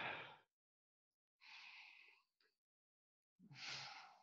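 A man breathing deeply in and out close to a headset microphone, in time with his movement: three short breaths, the first the loudest, with dead silence between them.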